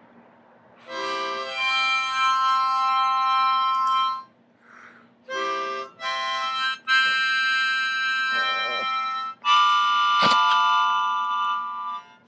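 Harmonica playing blues: held chords in about five phrases, separated by short breaks.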